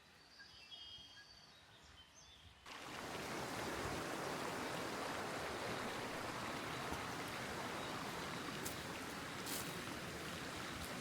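A few faint bird chirps, then about two and a half seconds in a steady rush of flowing stream water starts abruptly and carries on evenly.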